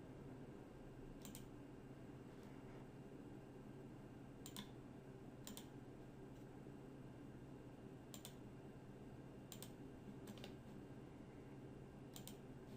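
Scattered single clicks of a computer mouse, about eight, spaced a second or more apart, over a faint steady hum.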